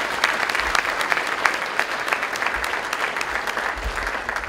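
Audience applauding: many hands clapping together, steady throughout.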